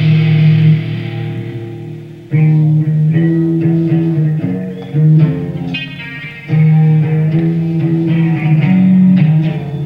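Live rock band playing an instrumental stretch: electric guitars and bass hold low chords that ring and fade, then the whole band hits back in hard, three times, about two, five and six and a half seconds in.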